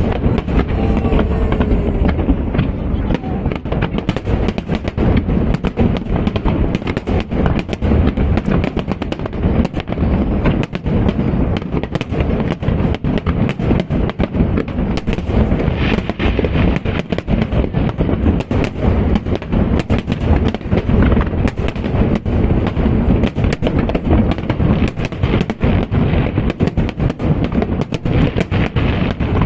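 Aerial fireworks barrage, a dense, continuous volley of bangs and crackles with many shots a second.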